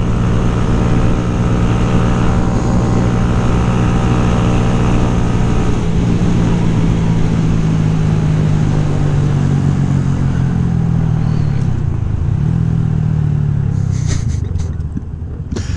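Motorcycle engine running at a steady cruise, then its pitch falls slowly over several seconds as it slows, picking up briefly before a few sharp knocks near the end.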